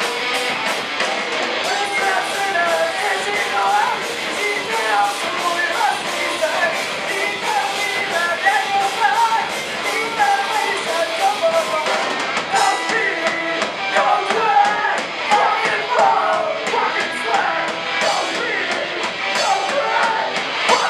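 Hardcore punk band playing live: electric guitars, bass and drum kit playing a fast, continuous song.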